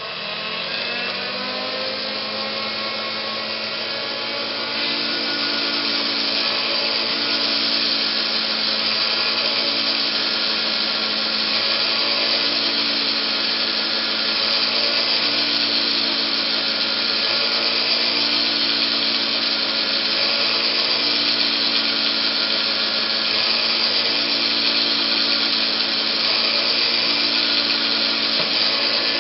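Proxxon TBM 115 bench drill press motor starting and spinning up, then running at a steady whine while a 1.5 mm diamond bit grinds a hole into glass under water. A harsher grinding hiss joins about five seconds in. The bit is fed in short pulses of about a second, so the water flushes the glass cuttings out of the hole.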